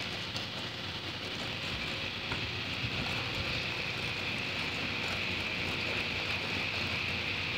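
Wire balloon whisk beating cake batter in a glass bowl by hand: a steady swishing, mixed with a steady background hiss.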